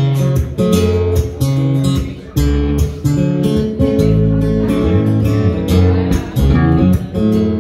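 Live band playing a song's instrumental opening: acoustic guitar strumming chords over an electric bass guitar line.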